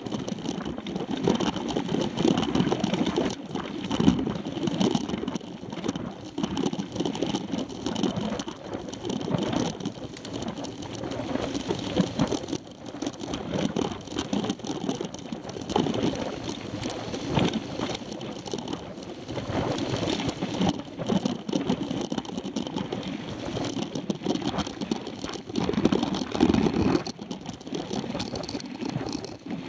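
Mountain bike rolling over a dirt road, heard from a camera mounted on the handlebars: a continuous rough rumble with frequent small knocks and rattles from the bike and mount.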